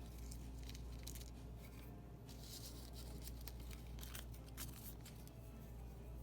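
Faint scraping, rustling and small clicks from hand tools working on a wristwatch movement, over a steady low hum.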